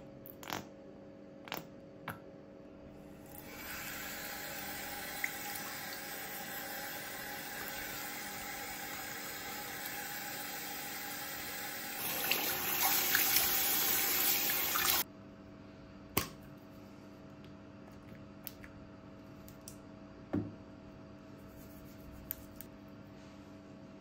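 Water tap running into a sink, starting a few seconds in, running harder for a few seconds, then turned off abruptly just past halfway. A few small clicks and knocks come before and after, over a faint steady hum.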